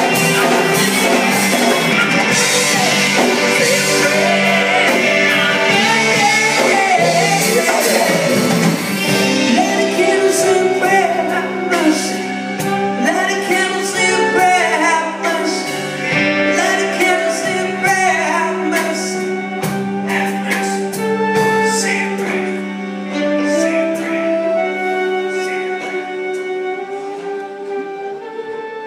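Live rock band playing with a lead singer: the full band is loud and dense for the first nine seconds or so, then thins to held chords and singing that slowly fade.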